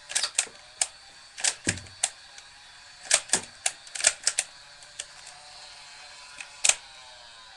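Nerf dart blaster being fired and worked: a string of about fifteen sharp plastic clicks and snaps at uneven intervals, bunched in the first four and a half seconds, with one last loud snap near the end.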